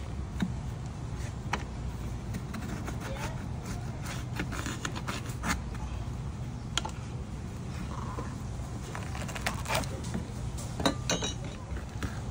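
Scattered light clicks and metallic clinks, several close together near the end, over a steady low rumble of background noise.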